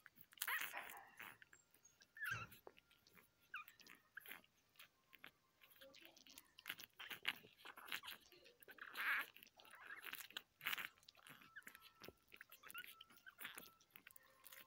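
Newborn English Bulldog puppies nursing: many faint wet suckling smacks and clicks, with a few short puppy squeaks.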